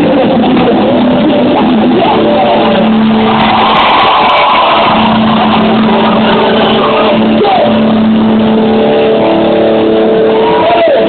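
Live rock band music in a heavily overloaded, muffled recording: held guitar and bass notes and a voice under a dense, distorted wash of noise.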